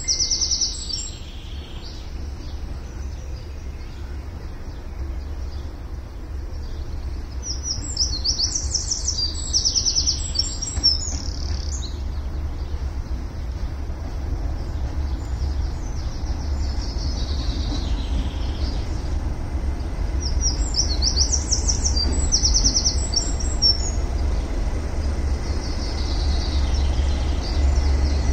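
Songbirds singing in short, bright, repeated trilled phrases. Beneath them runs a low rumble that grows slowly louder toward the end as a Class 37 diesel locomotive approaches.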